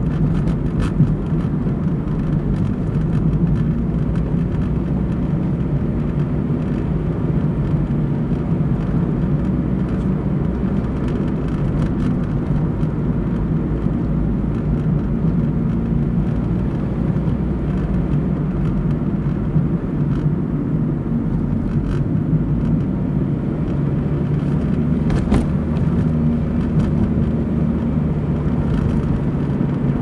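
Steady low rumble of a car's engine and tyres on the road, heard from inside the moving car, with a few faint clicks.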